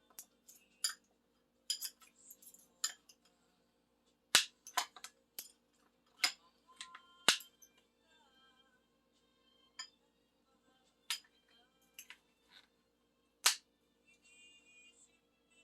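Cutlery clinking and tapping against dishes during a meal, a scatter of sharp clicks with a few louder strikes, over faint background music.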